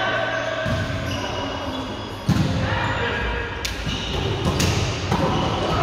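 Sharp ball strikes and bounces from an indoor volleyball game in a large gym hall, over players' voices and chatter; the loudest strike comes about two seconds in.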